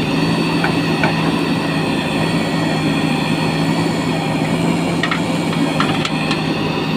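JCB 3DX backhoe loader's diesel engine running steadily under load while the backhoe arm digs soil. A few short knocks come about five to six seconds in.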